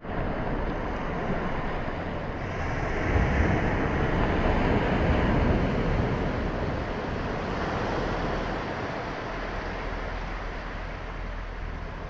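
Small waves breaking on a sandy beach and washing up the sand: a steady surf hiss that swells a few seconds in and slowly eases.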